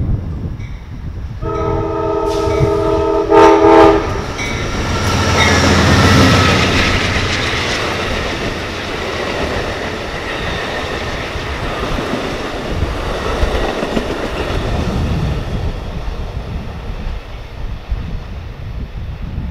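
Amtrak Capitol Limited passenger train passing at speed. The diesel locomotive's several-note horn sounds about a second and a half in: a long blast, then a shorter, louder one. The rumble of the locomotive and the clickety-clack of the double-deck Superliner cars follow, slowly fading as the train goes away.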